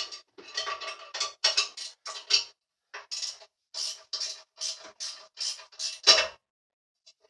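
A hand ratchet wrench tightening the nuts and bolts that hold a benchtop drill press to a vise mount: a run of short metallic ratcheting strokes, two to three a second, with a ringing metal tone. About six seconds in comes a single louder metal clank.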